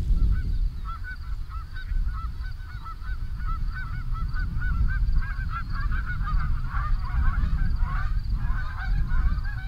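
A flock of Canada geese honking as a person walks toward them to flush them. It starts as scattered calls and grows into a dense, overlapping clamour from about halfway. Wind rumbles on the microphone underneath.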